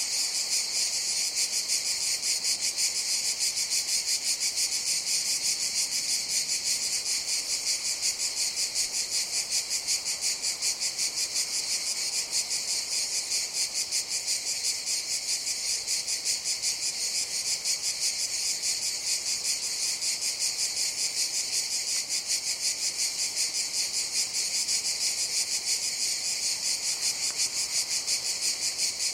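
Cicadas calling in a continuous high-pitched chorus, a steady buzz with a rapid, even pulsing that does not let up.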